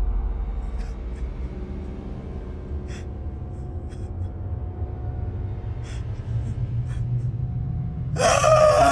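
A low rumbling drone as a deep boom dies away, with a few faint scattered clicks. About eight seconds in, a loud wavering wail or groan starts abruptly and holds on, with its pitch sliding up and down.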